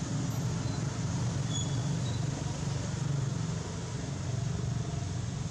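Steady outdoor background noise: an even low rumble with hiss underneath, and a few faint short high chirps.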